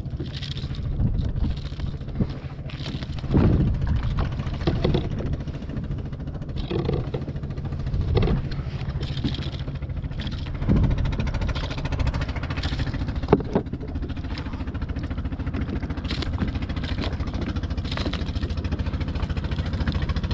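Steady low drone of a boat engine running nearby, heard from a plastic kayak on calm sea, with a few short knocks of gear against the kayak's hull.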